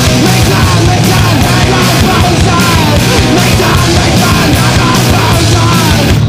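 Screamo/noise-rock band recording playing loud and dense, with distorted guitars and drums.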